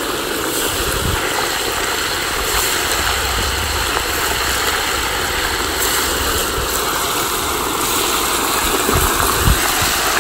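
Chunks of raw pork frying in a copper cazo of very hot lard: a steady, loud sizzle and bubbling, with the fat chillando as more pieces go in.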